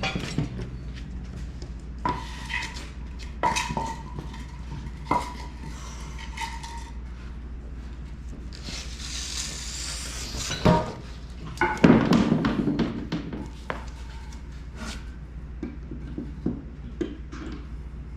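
Scattered metallic clinks and knocks, some ringing briefly, from handling jacks, boards and blocks around a jacked-up power hammer, with a hiss of about two seconds in the middle and a louder clatter shortly after.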